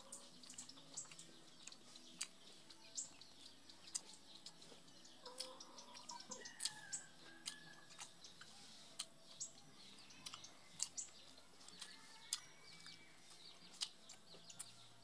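Soft, quick wet clicks and smacks of a mouth chewing food eaten by hand, several a second, with a few faint bird calls about six seconds in and again near twelve seconds.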